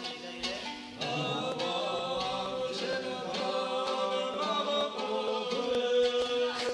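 A man singing over a strummed fandura (panduri), the Georgian three-stringed lute; the voice enters about a second in and holds long notes.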